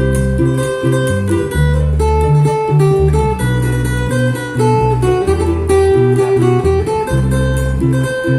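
Instrumental music led by plucked acoustic guitar over a bass line, with a steady beat.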